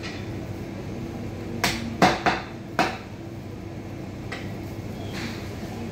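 A heavy butcher's cleaver chopping through a mutton carcass on a wooden butcher's block: four sharp chops in quick succession over about a second, then a fainter knock a couple of seconds later. A steady low hum runs underneath.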